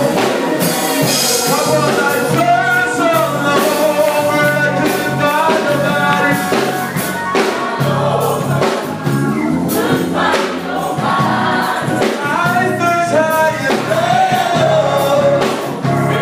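Live gospel singing: a small group of singers on microphones, backed by a steady bass line and percussion that strikes regularly throughout.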